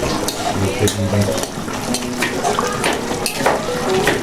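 Adobo simmering in a pot, a steady wet bubbling, with a metal spoon clinking against the pan several times.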